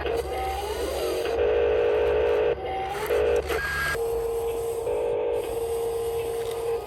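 Small electric motors of a radio-controlled toy construction machine whining at a steady pitch. They switch on and off every second or so, with brief rising whines as a motor spins up.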